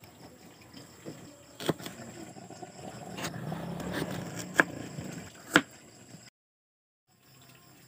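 Kitchen knife chopping vegetables on a plastic cutting board: a handful of sharp, separate knocks over a low rustle. The sound cuts out abruptly a little after six seconds in.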